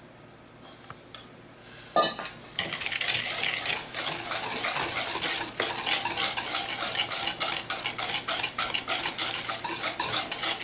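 Wire whisk beating an egg into a thick paste in a stainless steel bowl, its wires scraping and clicking against the metal in fast repeated strokes. The whisking starts about two seconds in, after a brief quiet with a light knock.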